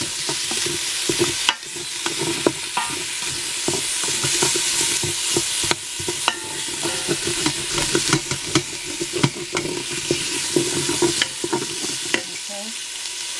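Onions sizzling as they sauté in a hot pot, with a utensil clicking and scraping against the pot as they are stirred.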